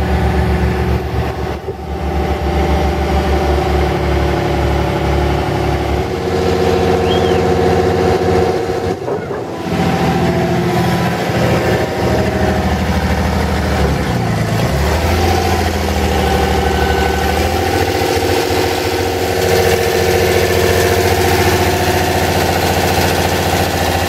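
The diesel engine of a JSW Nikko BH45 excavator running after standing idle for two years, its pitch shifting several times: a drop about six seconds in, a brief dip near ten seconds, and a falling-then-rising sweep around fourteen seconds.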